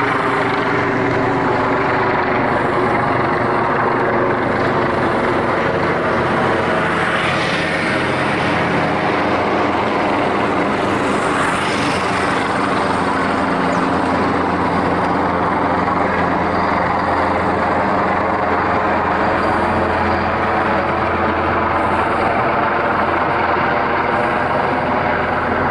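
Large twin-turbine Super Puma-family military helicopter flying overhead. Its rotors and turbines make a steady, even drone that holds through the whole stretch.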